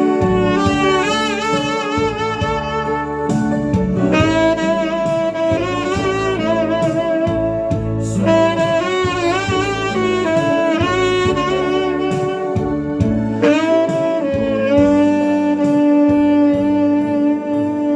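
Tenor saxophone playing a slow, lyrical melody with vibrato over instrumental accompaniment, settling on a long held note near the end.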